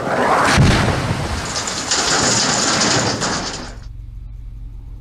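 Reinforced concrete chimney, felled with explosives, crashing to the ground: a heavy thud about half a second in, then a few seconds of rumbling and clattering rubble that cuts off sharply, leaving a faint low hum.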